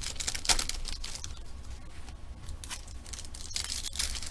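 Trading-card packaging being torn open and handled, with irregular crinkling and tearing rustles.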